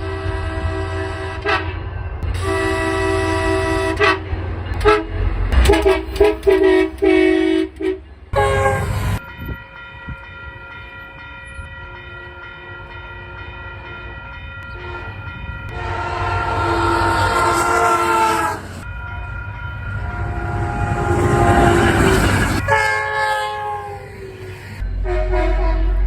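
Locomotive air horns sounding a string of blasts, each a chord of several steady tones, cut together from different recordings: many short choppy blasts at first, a long fainter chord through the middle, then louder blasts later, the one past the three-quarter mark over a swelling rush of train noise.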